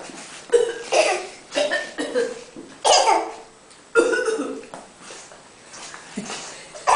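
A person coughing in a run of short, sharp coughs, roughly one a second, then a quieter stretch before one more cough near the end.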